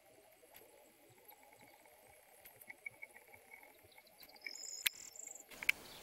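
Faint quiet outdoor evening ambience with insects chirping softly. Near the end come a sharp click and rustling handling noise as the camera is moved.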